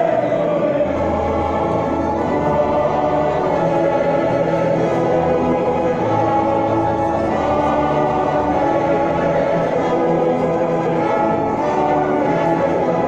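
A choir singing with orchestral accompaniment, held on long sustained notes at a steady, loud level.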